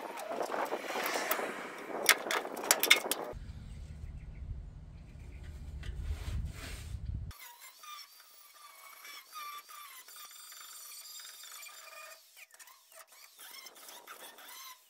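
Sharp clanks and knocks for the first few seconds, then a low rumble. For the second half an angle grinder runs against the steel of a 1948 Willys truck bed with a steady, high whine.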